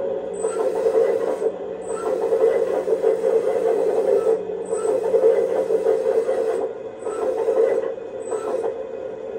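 Kabolite K336 radio-controlled hydraulic excavator's sound module running a steady simulated diesel engine hum, while a higher hiss from the hydraulic system cuts in and out about five times as the boom and arm are worked.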